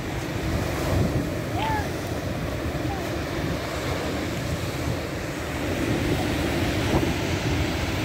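Rough surf breaking and washing up a pebble beach, a steady rushing wash, with wind buffeting the microphone.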